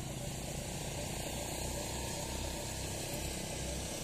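Small quad bike (ATV) engine running steadily, a rapid even putter.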